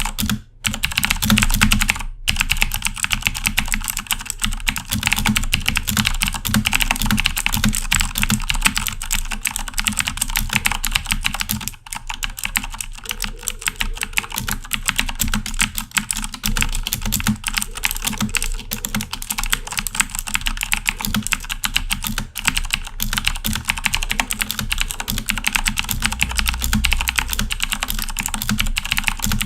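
Fast, continuous typing on a Corsair K70 mechanical keyboard with clicky Cherry MX Blue switches: a dense stream of sharp key clicks. It breaks off briefly about half a second in, again about two seconds in, and near twelve seconds.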